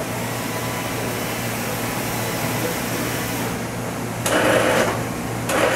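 Mighty Viper PRW-5340 CNC bridge mill milling aluminum plate under coolant, a steady mechanical hum with a constant low drone. Near the end there are two louder rushing bursts about a second apart.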